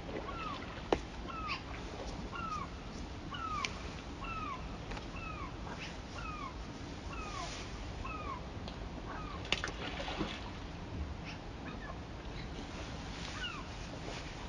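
A bird calling over and over, a short downward-slurring note about every two-thirds of a second through the first nine seconds, then twice more near the end, over the steady rush of the river. A couple of sharp clicks cut in, one about a second in and one about nine and a half seconds in.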